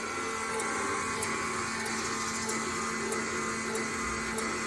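Kerupuk ogel-ogel dough-cutting machine running steadily: an electric motor hum with faint regular ticks, a little under two a second.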